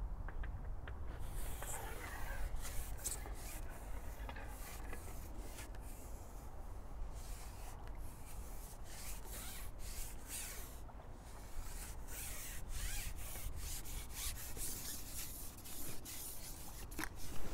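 Irregular rubbing and scraping noises, many short strokes one after another, over a steady low rumble.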